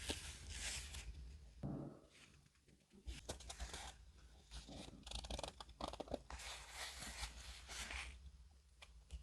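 Paper being handled close up for a handmade junk journal: intermittent soft rustling and scraping with a few small taps.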